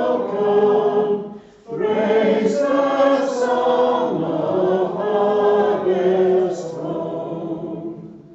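A group of voices singing a hymn together in held, sustained notes, with a brief breath between phrases about a second and a half in, the final phrase dying away near the end.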